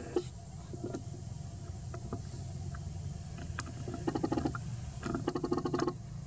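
A steady low hum with scattered clicks, and two short, rapid rattling bursts, the first about four seconds in and the second about five seconds in.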